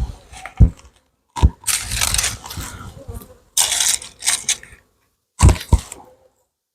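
Wooden beehive frames being handled with a hive tool: sharp wooden knocks and two stretches of cracking and scraping as frames are pried loose and lifted from the super. The sound cuts off suddenly near the end.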